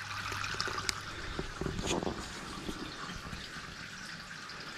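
Wort being pumped round the mash in an electric all-in-one brewing system, trickling steadily back onto the grain bed during recirculation, with a steady low hum underneath.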